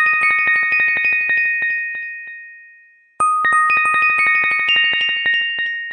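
End-card chime sound effect: a quick cascade of bright ringing strikes that fades away, then a second cascade starting about three seconds in.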